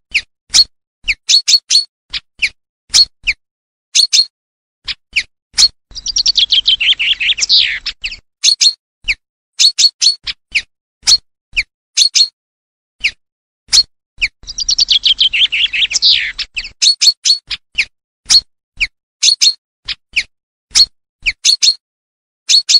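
Common chaffinch lure recording: short, sharp call notes repeated throughout. Twice it gives its full song, a rapid trill of notes falling in pitch that ends in a flourish, about eight seconds apart.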